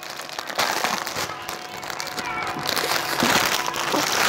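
Thin clear plastic packaging crinkling as it is pulled open and lifted off folded clothes, in two spells: a short one about half a second in and a longer one from about two and a half seconds to the end.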